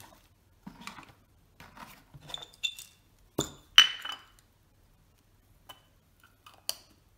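Small metal tools and objects being picked up and set down on a workbench: a series of light clicks and clinks, some ringing briefly, the loudest about three and a half to four seconds in.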